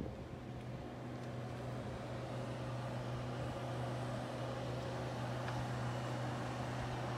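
A steady low mechanical hum with a fainter higher overtone, running without change, over a light background of outdoor noise.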